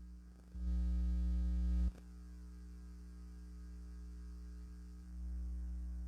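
Steady electrical mains hum with a stack of higher overtones. It swells louder about half a second in, drops back abruptly near two seconds, and rises again about five seconds in.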